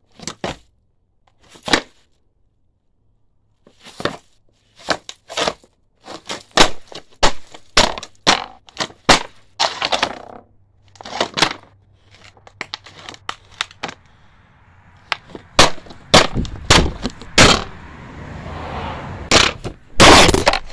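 Snowboard slapping and clacking on bare pavement during flatland tricks: a string of sharp knocks and thuds at irregular intervals, then several seconds of the board scraping along the ground, getting louder. Near the end comes the loudest knock, as the phone lying on the ground is knocked over.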